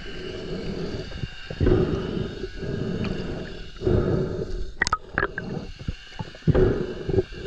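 Muffled underwater rumbling and gurgling in swells every second or so, heard through an underwater camera housing as the diver swims in and handles a speared fish, with a few sharp clicks about five seconds in.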